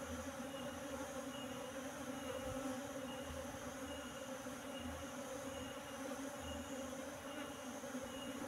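A swarm of Asian honeybees (Apis cerana) buzzing steadily as they fly around and into a hive box; the bees streaming into the box are the sign that their queen is already inside.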